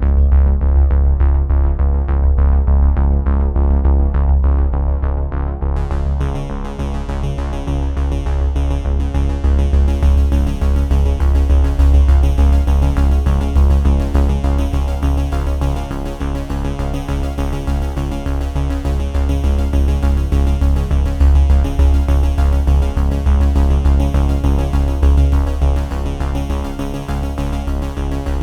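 Background electronic music on synthesizer with a strong, steady bass; the sound turns brighter about six seconds in.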